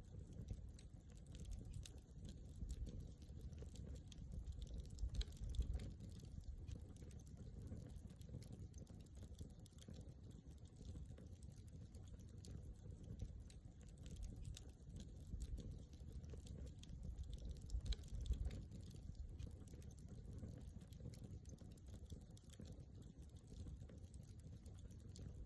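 Wood campfire crackling, with many small irregular pops and snaps over a steady low rumble.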